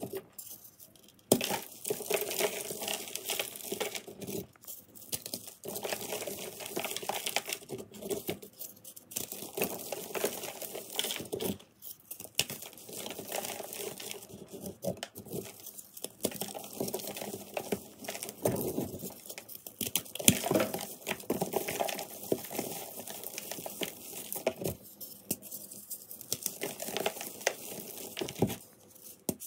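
Hands crushing reformed gym chalk blocks: continuous dry crunching and crackling as the blocks break and crumble into powder, starting with a sharp crack about a second and a half in.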